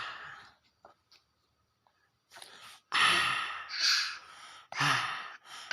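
A small child coughing after a sip of plain water, in two longer bouts about three and five seconds in: the water has gone down the wrong way because the child cannot yet drink properly.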